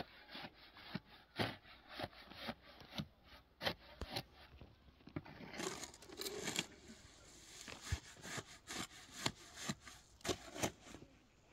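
Irregular light knocks and clicks, two or three a second, with scraping and rubbing between them: objects being handled.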